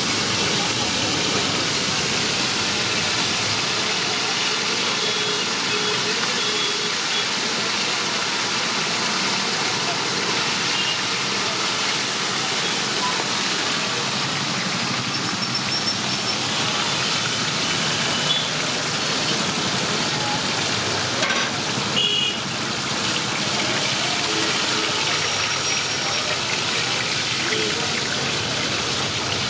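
Fish heads deep-frying in a wide pan of hot oil, a steady sizzle with bubbling. A brief knock comes a little after two-thirds of the way through.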